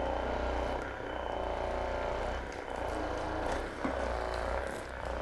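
Electric handheld massager running, a steady motor hum with small dips in level as it works over the back.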